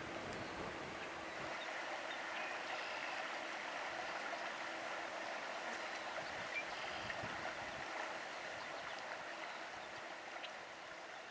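Shallow creek running over rocks and riffles, a steady rushing babble of water that grows slightly fainter near the end.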